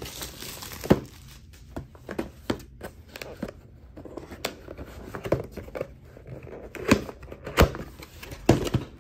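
Product box being opened and its packaging and contents handled: irregular crinkling and rustling with a string of sharp taps and knocks, the loudest few near the end.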